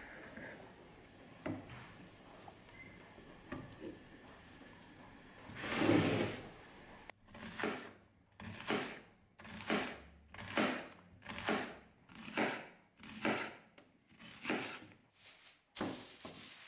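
Restored hunting knife slicing a peeled onion on a bamboo cutting board: regular cuts, each ending on the board, about two a second through the second half. Before that come faint scrapes and ticks of the blade cutting raw meat on a wooden board, and one louder noise about six seconds in.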